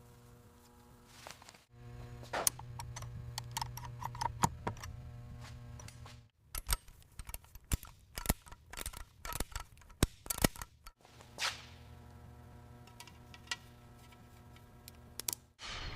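A steady machine hum with scattered clicks and taps. The hum stops for a few seconds in the middle while the clicks and taps go on, then comes back.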